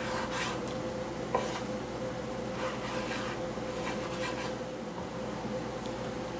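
Chef's knife slicing through raw chicken thigh onto a wooden cutting board, a soft stroke every second or so, with one sharper click about a second and a half in. A steady hum runs underneath.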